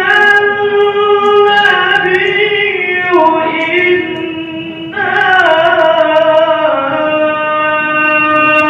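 A solo voice reciting the Qur'an in melodic qiro'ah style, holding long ornamented notes that step down in pitch. A new phrase starts about five seconds in.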